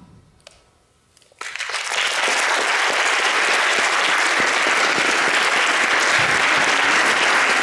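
Audience applause: after a short hush, clapping breaks out suddenly about a second and a half in and continues steadily.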